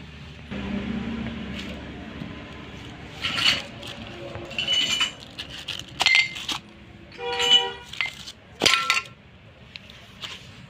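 Steel gearbox parts and tools clinking and ringing as they are handled and set down, about five separate strikes, over a low steady hum in the first couple of seconds.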